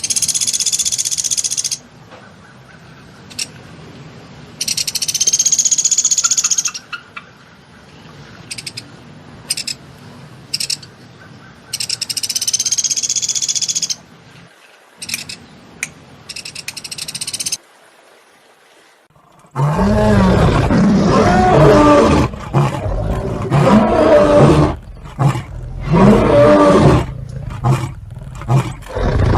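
Animal calls: several short, high-pitched calls in the first half, then, after a brief quiet gap, a loud run of deep calls that rise and fall in pitch.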